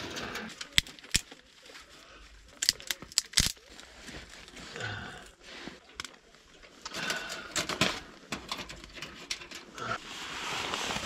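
Scattered clicks, knocks and rustling of gear being handled, irregular and with no steady running sound.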